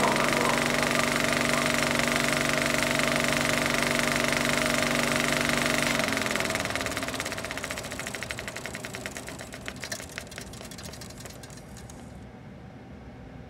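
A small machine running with a fast, even clatter under a steady hum. The hum stops about six seconds in, and the clatter fades away toward the end.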